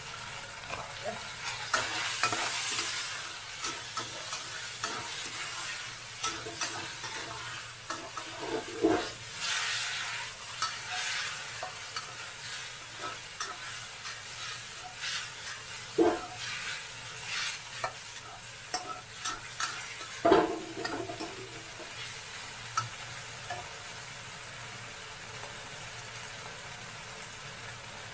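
Metal spatula stirring and scraping food around a hot wok over a steady sizzle of frying, with a few sharper clanks of the spatula on the wok now and then.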